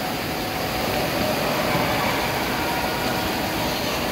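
Water jets from toy jet-ski water cannons spraying and splashing into a shallow pool, with children wading through the water: a steady wash of water noise.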